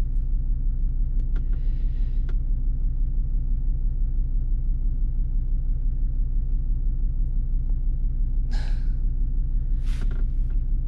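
Car engine idling steadily, a low even drone, with a few short hissing sounds about two seconds in and near the end.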